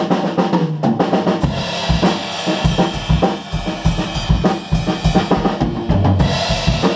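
Drum kit played in a steady groove during a sound check: kick drum, snare and cymbals, with the kick coming in heavier and faster about a second and a half in.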